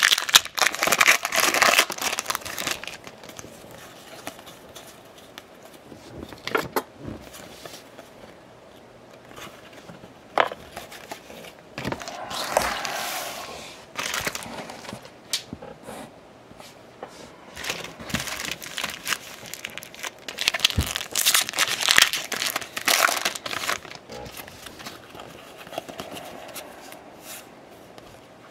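Foil wrappers of Topps baseball card packs crinkling and tearing open, in several bursts, with cards being handled in between.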